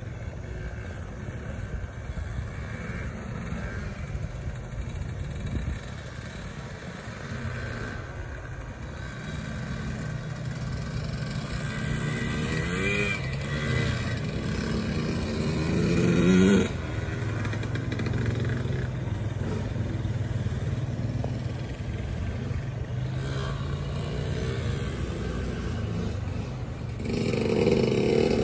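A small dirt bike's engine runs as the bike rides around, its pitch rising with each rev. It grows louder to a peak about two thirds of the way through, drops off suddenly, and swells again near the end.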